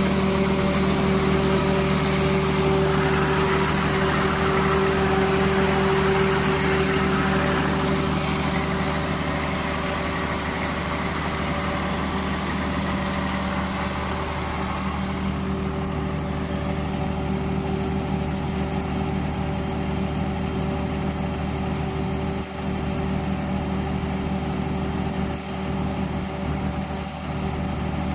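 Cummins diesel generator set running at a steady speed, a constant engine drone with a steady hum; the higher hiss eases a little about halfway through.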